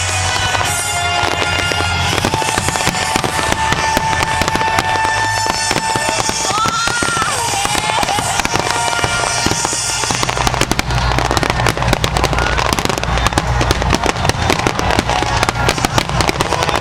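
Fireworks finale: rapid crackling and popping bursts with low booming shell explosions, growing denser and heavier about ten seconds in, with music playing underneath.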